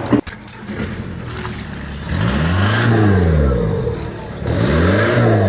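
An engine revving up and dropping back down, twice, with a sharp click just after the start.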